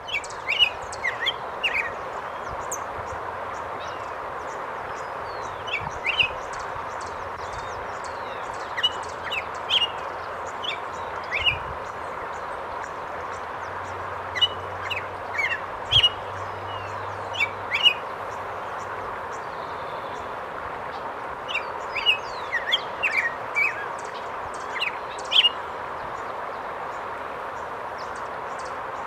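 Steady rush of a waterfall, with small birds chirping over it in short calls that come in scattered clusters.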